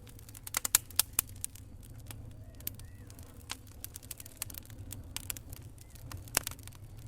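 Fireplace fire crackling: irregular sharp pops and snaps, a quick cluster about a second in and a loud pop near the end, over a low steady rumble of the flames.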